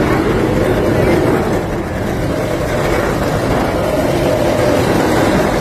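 Truck engine running steadily.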